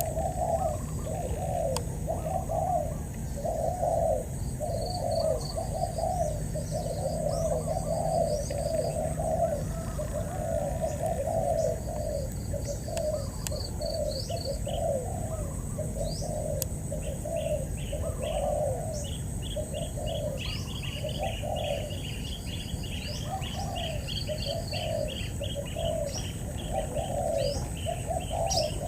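Spotted doves cooing over and over, the coos coming so thick that they overlap, as a caged decoy dove and a wild dove call at each other. Small birds chirp higher up, more busily in the second half, over a steady high buzz.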